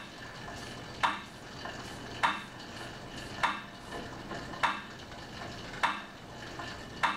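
Cycle ergometer being pedaled at a steady cadence of about 50 rpm. A short swish comes once per pedal turn, about every 1.2 seconds, over a steady faint hiss from the flywheel.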